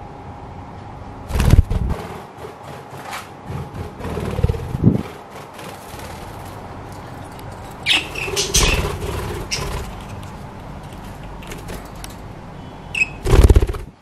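Budgerigars flapping their wings in several short flurries of rapid fluttering strokes, the loudest near the end, with a few short chirps.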